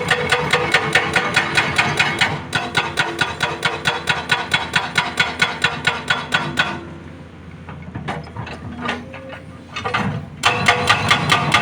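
Hydraulic breaker hammer on a SANY SY215C excavator pounding rock in rapid, even blows, about four a second. The hammering stops for a few seconds past the middle, leaving the machine's lower running sound and a few knocks, then starts again near the end.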